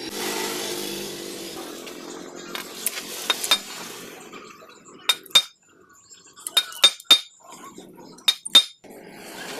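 Sharp metallic clinks and taps of a small hand tool on a steel workpiece, coming in quick clusters in the second half, with a steady hiss before them.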